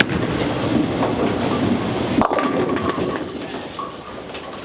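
Bowling ball rolling down a lane with a steady low rumble, then a sharp crack about two seconds in, followed by scattered clatter as the rumble dies away.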